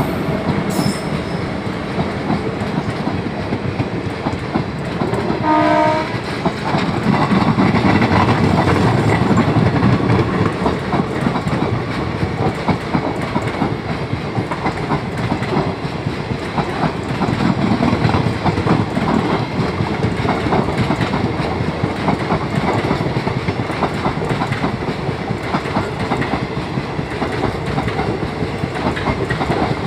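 Indian Railways express passenger coaches passing close by: a steady rumble with wheels clacking over the rail joints. A short horn note sounds about six seconds in.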